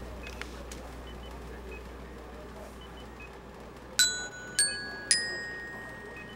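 Metallophone (a glockenspiel-style keyboard of metal bars) struck three times about half a second apart: three rising notes, each ringing on after it is struck.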